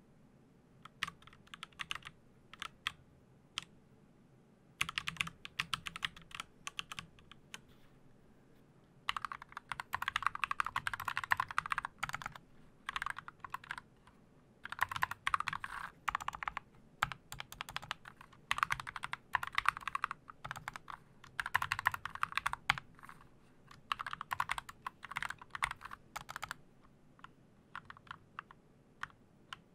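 Typing on a computer keyboard: runs of rapid keystrokes broken by short pauses, stopping a few seconds before the end.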